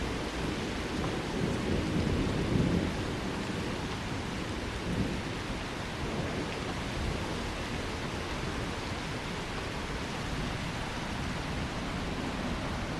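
Steady rain with a low rumble of thunder that swells over the first three seconds and then fades back into the rain.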